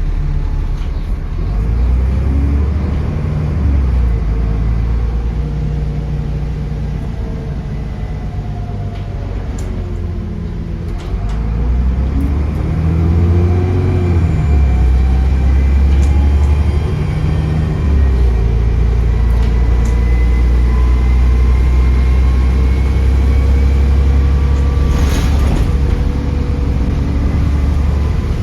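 Bus engine under way, heard on board: a deep rumble with a whistling turbo whine that falls and rises through gear changes, then climbs slowly and steadily in pitch as the bus accelerates over the last ten seconds or so.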